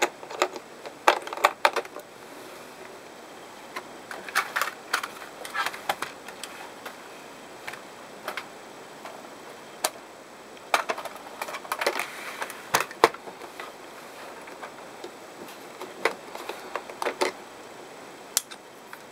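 Irregular clicks and clatter from handling small tools and hard plastic: screwdriver bits taken from a plastic tool case, and a plastic game console picked up and turned over. The clicks come singly and in short bunches, with the sharpest one at the very start.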